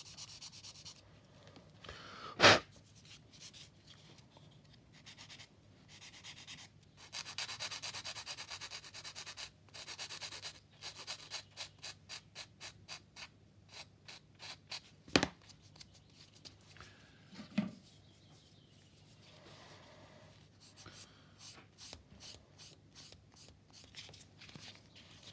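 Fine sanding stick rubbed back and forth against the sprue-gate stub on a clear plastic kit canopy, in runs of quick rasping strokes with pauses between. There are a few sharp knocks, the loudest about two and a half seconds in.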